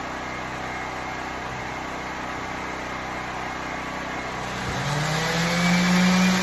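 Electric power sander on log walls: a steady grinding hiss, then about three-quarters of the way through its motor spins up, rising in pitch and settling into a louder steady hum.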